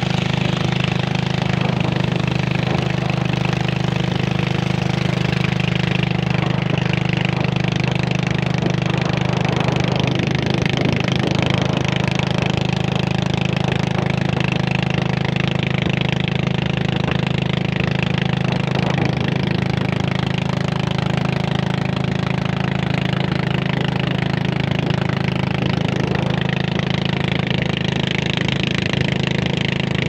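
Small boat's engine running steadily at cruising speed, a constant drone with no change in pace, over the rush of water along the hull.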